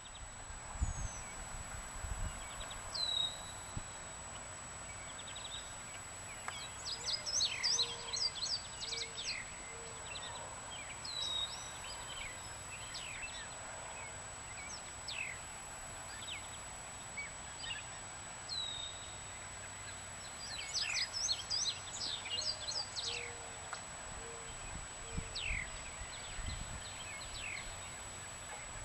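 Small birds calling: short falling chirps and several bursts of rapid chirping notes, over a steady thin high-pitched tone. A few low bumps come near the start and near the end.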